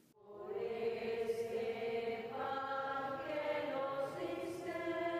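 Slow sung chant: voices holding long notes, stepping to a new pitch a few times.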